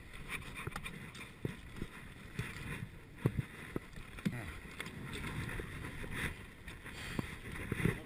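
A mountain bike pushed by hand over rocky ground: irregular clicks and knocks from the bike and the rider's steps, over a low rustling rumble.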